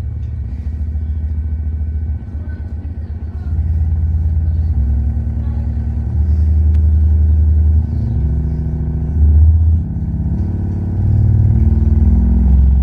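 A Fabtec 10-inch car subwoofer playing loud, deep bass test tones that change in steps every couple of seconds as the test frequency is raised.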